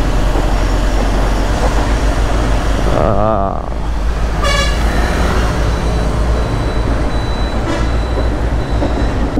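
Motorcycle riding slowly through traffic: a steady low rumble of wind and engine, with short vehicle horn toots about three and four and a half seconds in.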